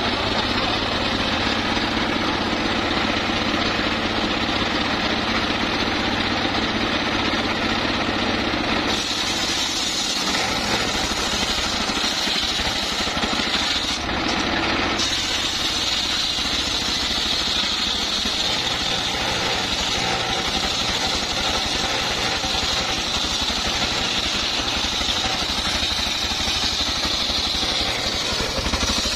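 A homemade circular saw bench, belt-driven by a single-cylinder stationary diesel engine, runs steadily while its large blade rips a log lengthwise. From about nine seconds in, the blade's high cutting whine grows louder over the engine and holds through the rest.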